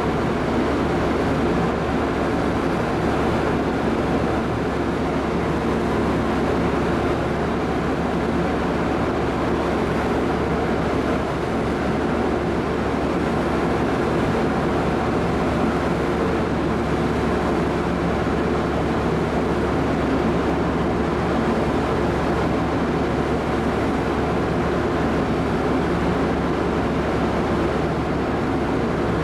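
Steady rumble of a large car ferry's engines and shipboard machinery, heard from the open upper deck, with a faint low hum beneath it.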